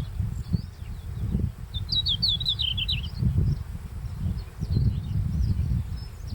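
Red-flanked bluetail singing: one quick phrase of high notes about two seconds in, with fainter notes scattered around it. A low, uneven rumble runs underneath.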